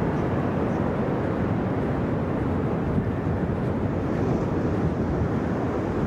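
Steady low roar of ocean surf with wind buffeting the microphone, an even rumble with no separate events.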